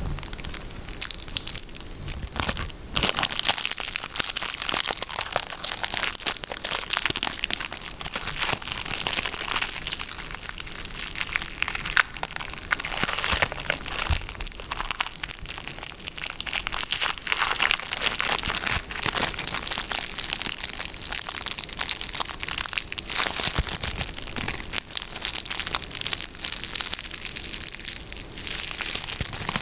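Close-miked ASMR handling of soap and its packaging: a continuous dense crinkling and crackling, full of small sharp clicks, that never pauses.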